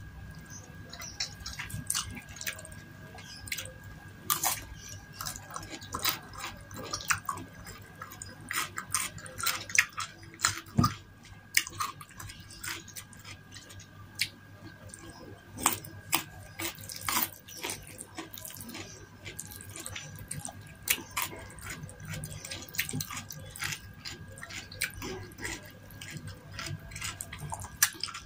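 Close-up eating sounds: wet chewing and smacking of seblak's soft, sauced crackers and crisp cucumber slices, with many quick clicks and squelches.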